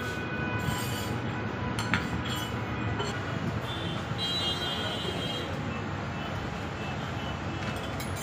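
Steady street traffic noise, with a single glass clink about two seconds in.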